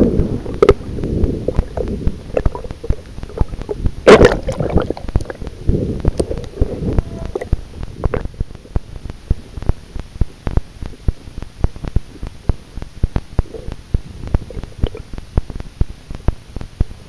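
Underwater sound heard through a camera housing. A muffled rush of water fades over the first seconds, with one brief loud burst of water noise about four seconds in. After that comes a dense run of sharp clicks and knocks, several a second.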